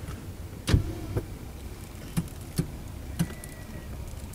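Steady low rumble of a vehicle heard from inside the cabin while it drives slowly, with about five short knocks or clicks scattered through, the loudest under a second in.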